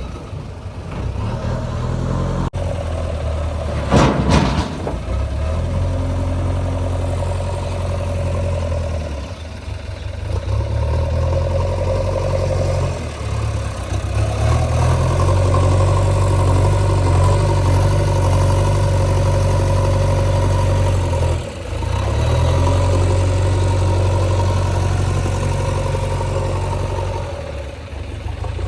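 Diesel engine of a JCB 3DX backhoe loader running under load, its note rising and falling as it works. There is a loud clank about four seconds in.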